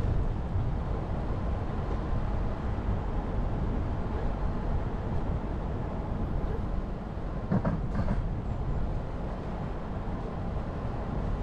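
Jeep Renegade driving along a mountain forest road: a steady low rumble of engine and tyres, with a brief knock or rattle about two-thirds of the way through.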